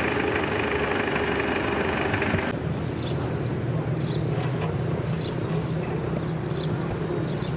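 Large diesel truck engines running steadily. About a third of the way in the sound changes abruptly to a lower, steadier idling hum, with short faint high chirps over it.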